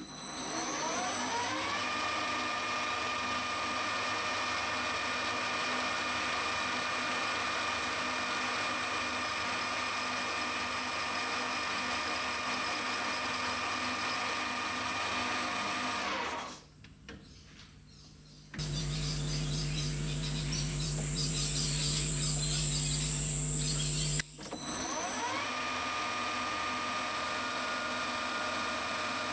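Metal lathe spindle spinning up with a rising whine that settles into a steady whine while it turns an aluminium part under a cutting tool. About 16 s in the whine falls away and stops. A different steady hum with a hiss starts about 18.6 s in and cuts off abruptly around 24 s. The spindle then spins up again with the same rising whine.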